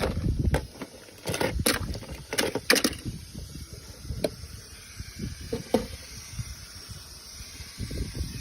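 Hands handling small objects and packaging: irregular clicks, taps and knocks, several in quick succession in the first three seconds and then a few scattered ones, over a low rumble and faint hiss.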